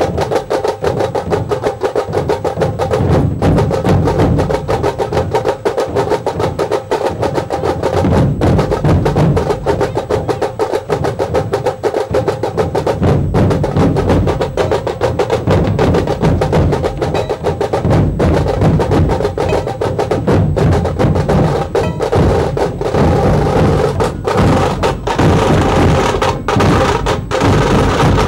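Dhol-tasha ensemble drumming: large barrel dhol drums beaten with sticks under the rapid, dense strokes of tasha drums, a continuous fast rhythm.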